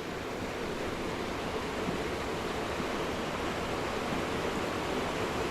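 Steady rush of flowing creek water, an even hiss with no distinct events.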